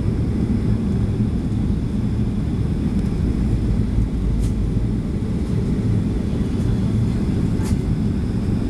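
Steady low rumble of a Boeing 737's engines and airflow, heard from inside the passenger cabin during the descent to land.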